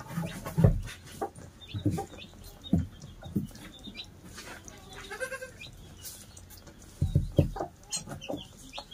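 Young goat kids bleating in short, scattered calls, with dull thumps and shuffling among them, the loudest about half a second in and again around seven seconds in.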